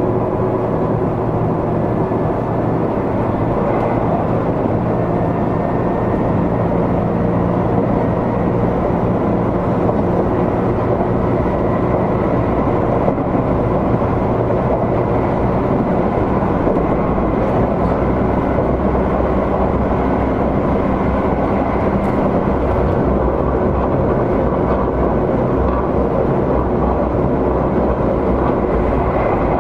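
Seibu 20000 series electric train running, with steady wheel-on-rail and running noise and a faint high tone held through it.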